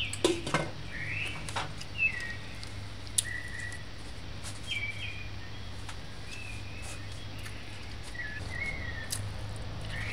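Birds chirping, with short, repeated calls and little gliding whistles over a steady low hum. A few sharp clicks sound in the first three seconds.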